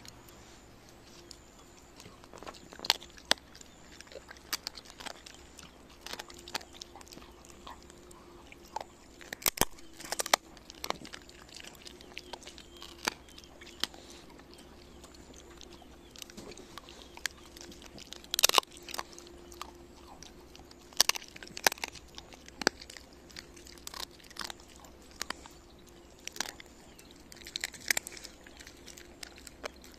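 Shiba Inu chewing a boiled chicken carcass, with irregular sharp crunches as the bones crack between its teeth.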